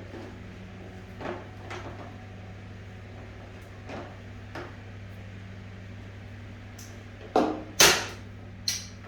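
Aluminium kitchen cabinet doors being worked: a few soft knocks, then near the end three sharp clacks of the doors shutting, the second the loudest. A steady low hum runs underneath.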